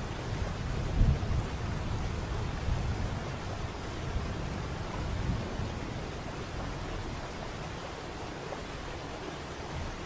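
Waterfall pouring, a steady rushing of falling water with a deep rumble underneath. There is a brief low thump about a second in.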